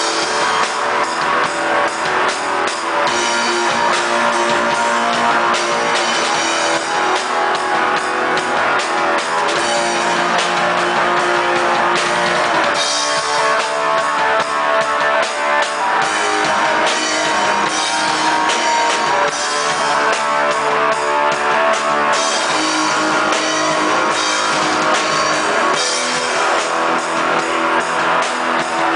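Black metal band playing live: distorted electric guitars over a drum kit with steady, dense drumming, loud and unbroken throughout.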